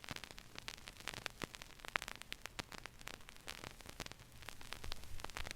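Surface noise of a vinyl 45 rpm single after the music has ended: a steady hiss and low hum under scattered crackles and pops.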